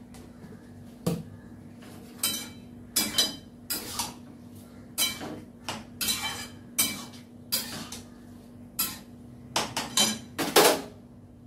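A spatula stirring food in a steel kadai on a gas stove, about fifteen irregular scraping and knocking strokes against the pan, the loudest near the end.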